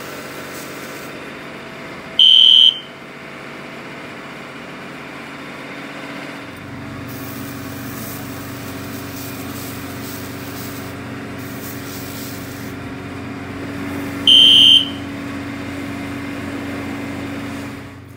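Two short, loud electronic beeps from the fire alarm system, one about two seconds in and another about twelve seconds later, over a steady mechanical hum that grows fuller about six and a half seconds in.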